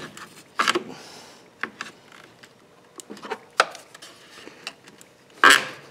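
Scattered clicks, knocks and scrapes of a screwdriver prying at a stiff plastic piece beside a car battery, working its hidden tabs loose. There are louder scrapes about a second in and again near the end.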